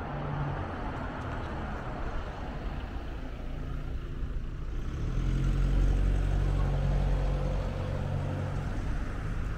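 A motor vehicle's engine running in the street, a low steady hum that swells about five seconds in and eases off near the end, over general street noise.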